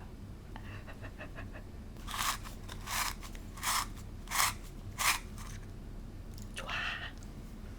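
Crisp, rasping strokes of food preparation while seasoning a bowl of noodles: a few faint ticks, then five evenly spaced strokes, and one more softer rasp near the end.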